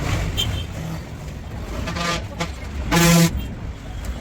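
A vehicle horn toots once, briefly, about three seconds in, over a steady low rumble of passing traffic.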